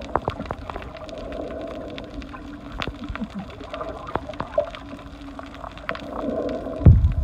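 Muffled underwater sound picked up by a submerged camera: a steady low hum and many small clicks and crackles in the water, with a few heavy low thumps near the end.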